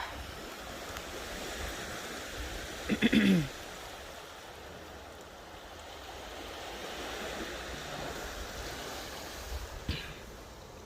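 Steady wash of waves on a shore. About three seconds in there is a short, loud voice-like sound that falls in pitch.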